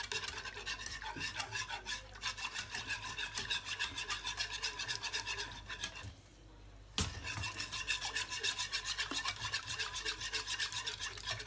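Wire balloon whisk beating and scraping against a saucepan, stirring a cornstarch-thickened lemon cream as it cooks, in quick even strokes several times a second. The strokes stop for about a second just past the middle, then start again with a sharp click.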